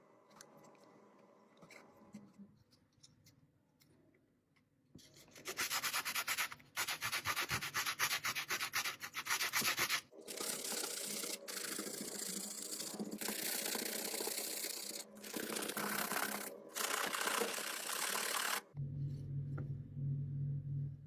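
Sanding: abrasive rubbing in rapid strokes across a surface, starting about five seconds in and going on with short pauses. Near the end it gives way to a low steady hum.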